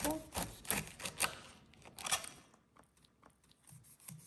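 Large kitchen knife cutting down through pineapple rind: a run of crisp crunching cuts, fainter and more scattered in the second half.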